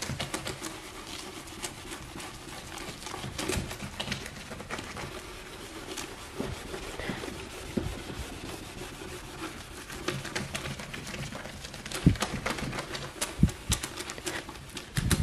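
A cut lemon coated in baking soda rubbed and scrubbed against a plastic car headlight lens to clean off its fogging: irregular gritty scrapes and clicks, with a few louder knocks near the end.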